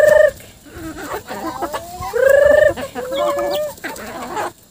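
Free-range chickens clucking around scattered feed, with a loud squawk at the start and another about two seconds in.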